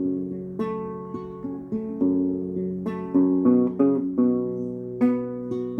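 Acoustic guitar playing an instrumental passage: chords plucked and strummed, each struck sharply and left to ring and fade, a new chord about every half second to second.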